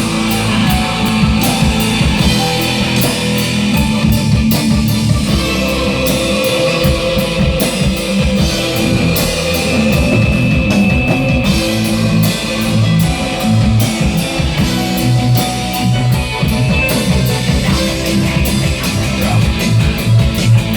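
Rock music: guitar over a drum kit keeping a steady beat.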